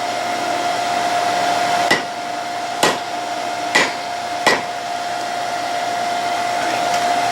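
Four hammer blows on hot steel resting over a chisel used as a hot cut, spaced about a second apart, denting the bar for cutting. Under them a forge air blower runs with a steady rush and a constant whine.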